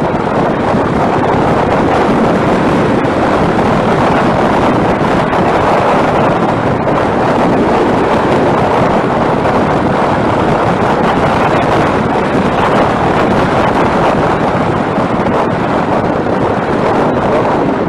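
Loud, steady wind rush over the microphone of a rider on a moving motorcycle, with no engine note standing out.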